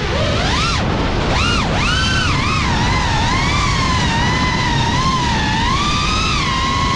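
Cinewhoop FPV quadcopter motors and ducted propellers whining. The pitch swoops up and down with the throttle, dips sharply twice near the start, then wavers around a steadier pitch, over a steady rush of wind.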